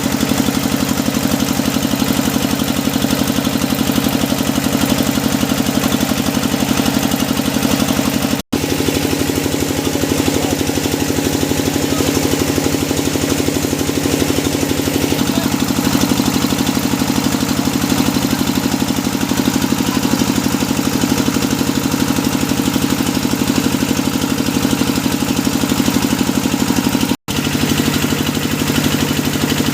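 Engine of a hydraulic deep-well drilling rig running steadily, its pitch shifting slightly twice. The sound cuts out for an instant about a third of the way in and again near the end.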